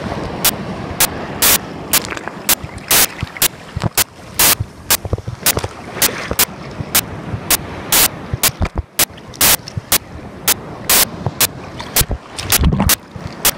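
Sea surf and churning water breaking at the shoreline, close to the microphone, broken by sharp clicks on the microphone about twice a second.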